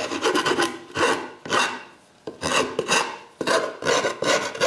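Wood rasp filing the edge of a freshly CNC-cut hole in a spruce board: repeated back-and-forth strokes, about two a second, with a brief pause about two seconds in.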